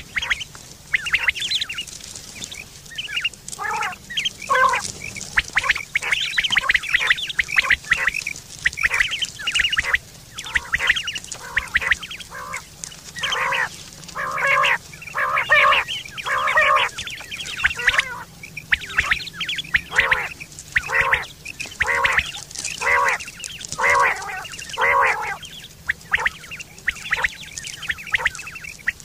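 Quail (batair) calling over and over: a long series of short, pitched calls, bunched in runs with brief gaps between.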